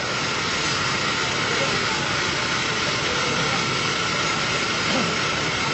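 A steady engine running with a constant hiss and a faint steady whine, holding one level throughout.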